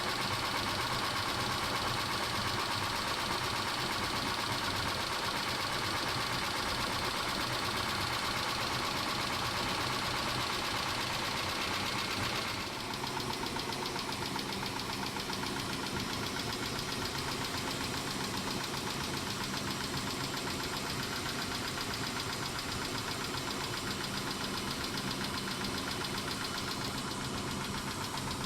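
Mitsubishi 6G72 V6 engine running with a fast, even metallic ticking from the valvetrain. The owner suspects the hydraulic lash adjusters are tapping, though he doubts they are the cause. The sound shifts slightly and drops a little about halfway through.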